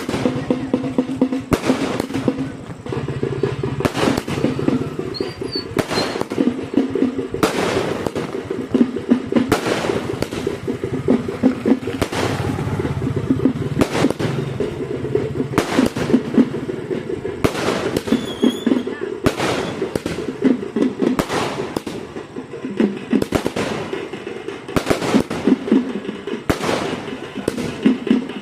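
A 120-shot firework cake firing shot after shot: sharp bangs about once a second or so over a continuous crackle.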